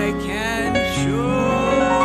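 A woman singing a solo with accompaniment, sliding between notes and then holding one long note through the second half over steady low accompanying tones.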